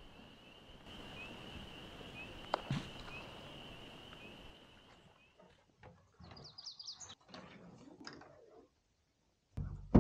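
A steady, high-pitched trill of night-calling animals with a sharp knock about two and a half seconds in. After about six seconds come short bird chirps. Near the end there are loud knocks and scrapes as a canoe is handled at the shore.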